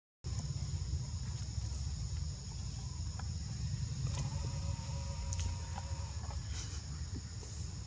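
Outdoor ambience: a steady high-pitched insect drone over a low rumble. About four seconds in, a long, flat-pitched call of a distant rooster crowing is held for around two seconds.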